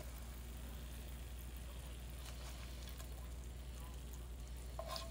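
Faint, steady sizzle of eggs frying in a Teflon non-stick skillet, over a constant low hum.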